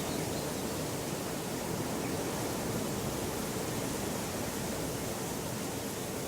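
Rural hillside ambience: a steady, even rushing noise with no breaks.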